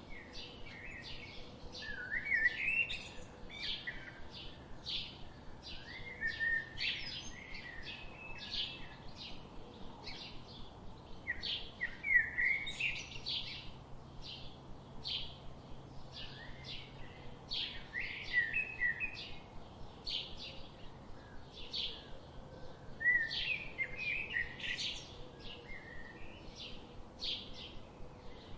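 Birdsong: short, high chirps repeated over and over, with longer warbling phrases breaking in every few seconds.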